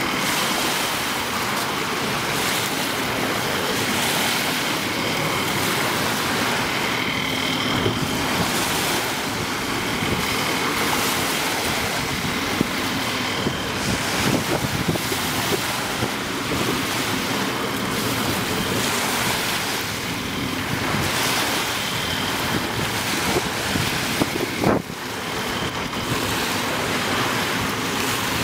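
Small waves washing in and breaking on a pebble beach, with gusts of wind on the microphone.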